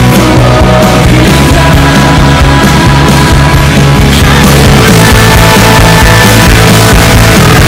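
Loud background music: a full-band, rock-style passage with a steady beat and heavy bass, with no clear singing.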